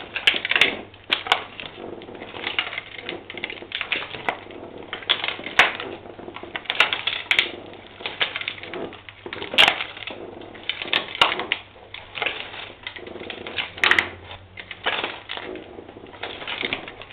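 Motorcycle tyre rolling slowly over broken debris on a concrete floor, crushing it with irregular cracks and crunches, many a second at times.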